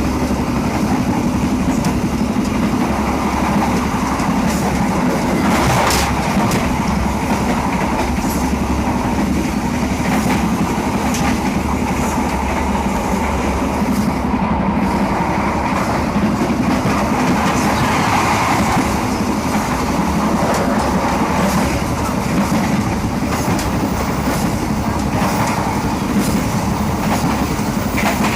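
Bogies of a passenger train carriage running on the rails: a steady rumble with scattered clicks and knocks from the wheels over rail joints, one louder knock about six seconds in.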